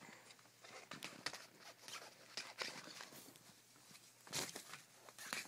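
Faint, irregular rustling and scuffing of fabric bedding with scattered small clicks as a poodle puppy moves about on it, with one louder scuff about four and a half seconds in.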